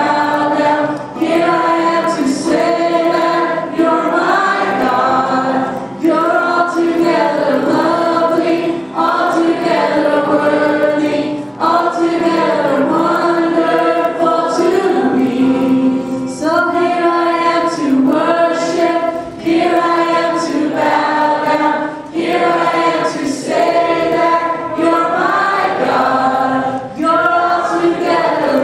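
Several voices singing a song together, led by a woman singing into a microphone, in phrases with short breaks between them every two to three seconds.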